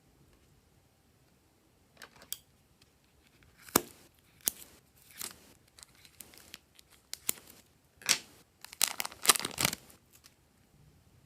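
Slime being handled: irregular sharp sticky clicks and short crackling pops, starting about two seconds in and thickest near the end.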